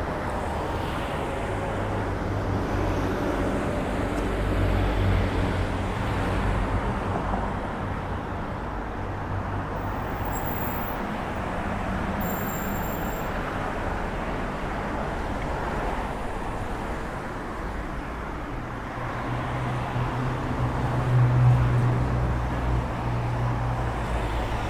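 Road traffic passing on a town street: a steady rush of cars and tyres, with a vehicle's low engine hum growing louder as it passes about five seconds in and again near the end.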